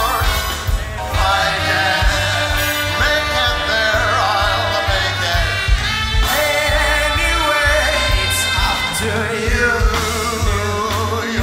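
Live big band music with a steady beat: a melody line rising and falling over bass and drums.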